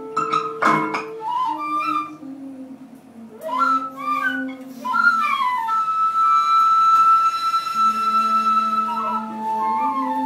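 Two end-blown flutes played together: one holds low sustained notes while the other plays quick runs and trills, then one long steady high note through the middle. A sharp click comes about a second in.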